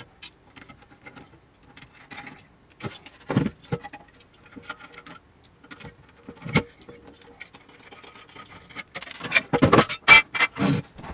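Heatsink cover panel of a metal electronics control box being taken off by hand: scattered clicks and knocks of parts and tools, with a louder cluster of clatter near the end.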